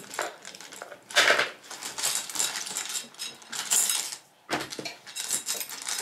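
Small glow-in-the-dark pebbles clattering and clinking together as they are handled, with louder rattles about a second in and again near four seconds.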